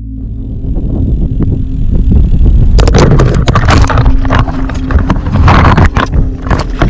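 Loud rumbling and rattling of a loaded touring bicycle ridden over a rough dirt track, heard through a camera mounted on the bike, with a dense clatter of knocks from about three seconds in.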